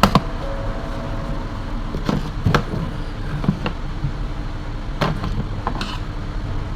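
A few sharp clicks and taps from a table fan's parts and wiring being handled during repair, over a steady low background rumble.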